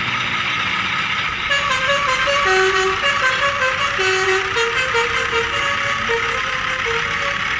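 A simple electronic tune of single stepped notes, starting about a second and a half in, over a steady whirring hiss.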